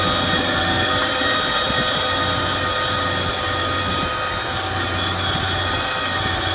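Arm-mounted silt pump and the machine powering it running steadily while pumping ditch silt, a constant drone with held higher tones over it.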